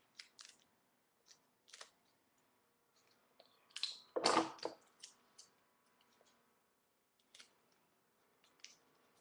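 Paper and tape being handled while a thin rolled paper tube is made: scattered soft rustles and clicks, with a louder rasping rustle about four seconds in.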